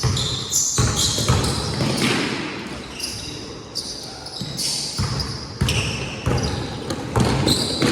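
Basketball game in play in a gym: the ball bouncing on the court in irregular thuds, short high squeaks, and players' voices calling out now and then.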